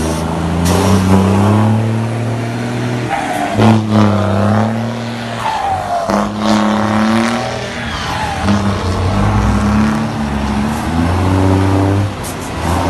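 Heavy truck's straight-piped diesel exhaust rumbling. The note holds steady, then steps to a new pitch several times as the engine is revved and the gears are changed.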